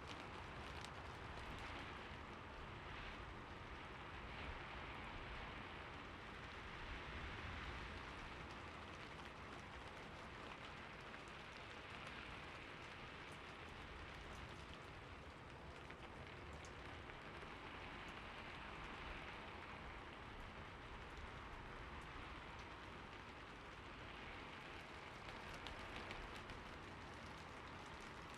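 Steady rain falling, a soft even hiss full of fine drop patter that swells and eases gently every few seconds.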